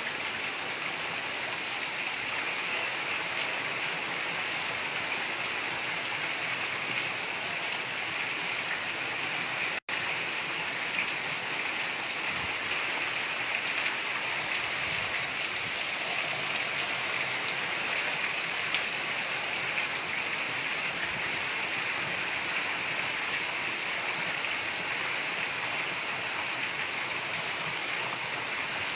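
Heavy downpour: a steady, dense hiss of rain pouring down, dropping out for an instant about ten seconds in.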